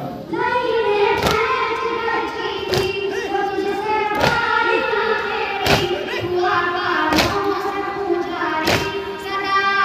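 A reciter singing a noha, a Shia mourning elegy, in long drawn-out lines into a microphone. Six loud thuds fall in strict time, about every one and a half seconds, from the crowd beating their chests in unison (matam).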